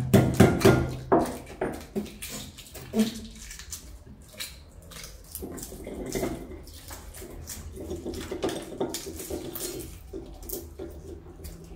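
Boiled eggshells being cracked and picked off by hand: a continual run of small, irregular crackles and clicks.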